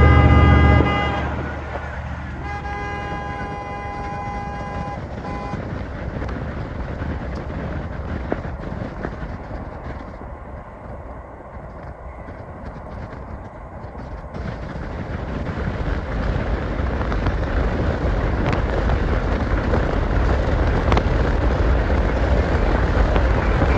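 A car horn honking: one long blast ends about a second in, and a second one is held from about two and a half to five seconds. After that comes the steady rush of a car driving, with road and wind noise that grows louder toward the end.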